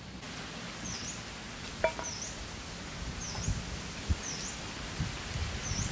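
A bird repeating a short high chirp that dips and rises, about once a second, over a steady outdoor hiss. A single metallic clink sounds a little under two seconds in, and soft low knocks follow from about halfway.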